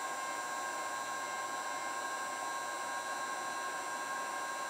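Heat gun blowing hot air at about 500 degrees: a steady rush of air with a constant high whine over it.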